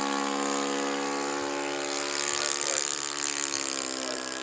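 Four-stroke glow engine of a radio-controlled model Cessna running in flight, a steady buzzing note that drifts slowly down in pitch.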